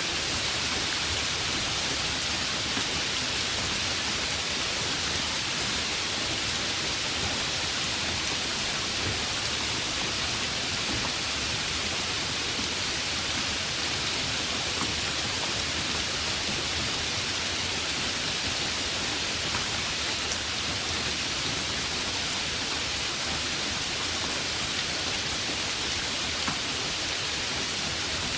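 Heavy rain falling steadily, a dense even hiss with the odd sharper drop tick.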